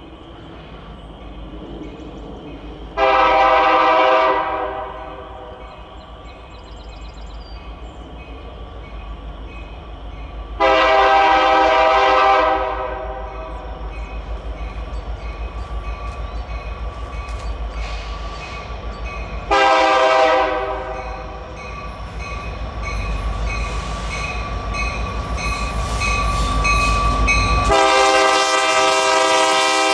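Diesel locomotive air horn sounding four blasts, long, long, short, long: the standard signal for a grade crossing. Under the horn the low rumble of the approaching train grows louder toward the end.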